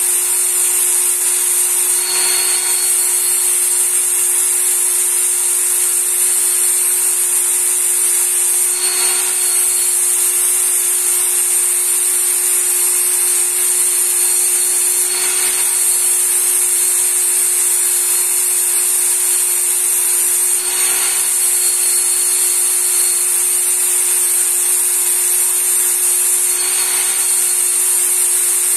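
Work Sharp Knife and Tool Sharpener's small belt-sander motor running steadily at its highest speed. A knife blade is drawn slowly along the fine abrasive belt, with a light grinding rasp about every six seconds as each stroke begins.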